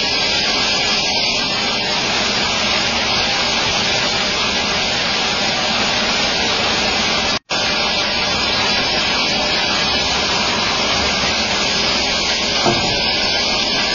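Band sawmill blade cutting lengthwise through a log, a loud, steady hiss of blade and flying sawdust. About halfway through the sound drops out completely for a split second, then carries on.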